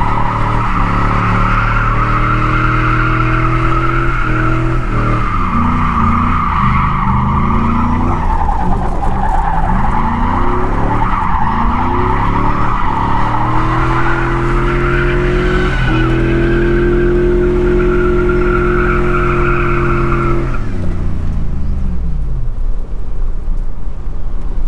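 Chevy Silverado's 5.3-litre LM7 V8 held at high revs during burnouts and donuts, with the rear tyres squealing continuously. The revs dip and climb again several times, and about 20 seconds in the squeal stops and the engine winds down.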